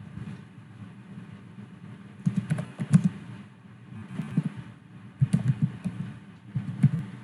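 Typing on a computer keyboard: four short runs of quick keystrokes with pauses between them, over a steady low hum.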